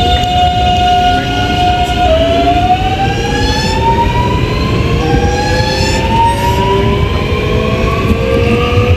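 Alstom Metropolis II metro train's IGBT-VVVF traction inverter (ONIX 233 XHP) whining over the low rumble of the running train: a held tone that drops about two seconds in, then several tones climbing steadily in pitch together as the train accelerates.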